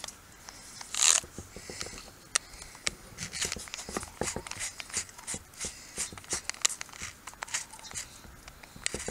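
Tie wire clicking and scraping against a kennel panel's steel post and bars as it is worked by hand, a string of irregular light ticks with one louder scrape about a second in. No drill motor runs.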